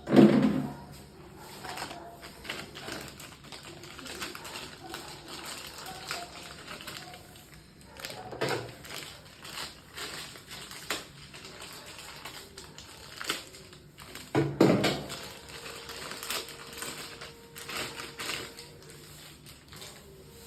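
Irregular clicks and taps of tools and parts being handled while a washing machine's valve is being replaced. Two louder, short low sounds come near the start and about two-thirds through.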